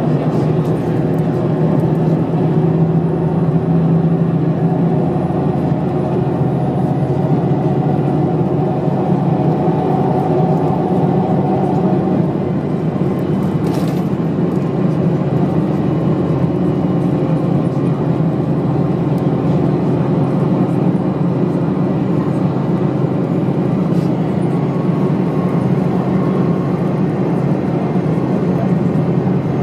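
Cabin sound of a 1997 Steyr SL 12 bus with a Volvo diesel engine driving at motorway speed: steady engine hum mixed with road and tyre noise. The engine tone shifts slightly about twelve seconds in, and there is a single click about two seconds later.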